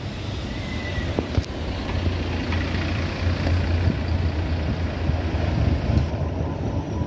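Street traffic with a Mercedes-Benz Citaro city bus passing close by, its diesel engine rumbling low and steady.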